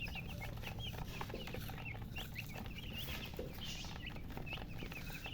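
A group of baby chicks peeping continuously, many short, high, arching chirps overlapping one another, which the uploader puts down to the chicks being thirsty for water.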